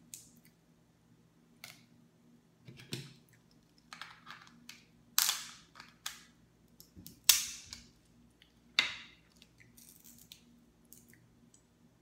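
Cooked Dungeness crab shell being cracked and snapped apart by hand as the meat is picked out: a scatter of light clicks and crunches, with three loud sharp cracks in the second half. A faint steady low hum runs underneath.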